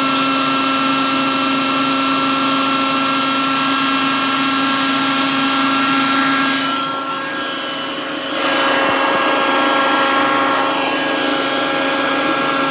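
Food processor motor running steadily, blending milk and ice cream into a milkshake: a steady whine over a hiss, dipping briefly about seven seconds in.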